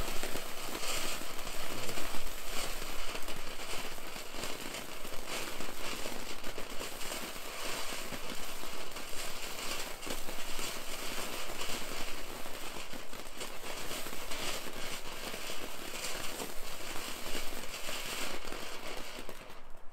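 Standard Fireworks box fountain firework burning with a continuous hissing, crackling spray of sparks that cuts off near the end.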